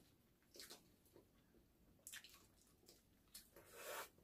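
Faint chewing and wet mouth sounds of a person eating fried chicken, in a few short bursts, with a longer one near the end.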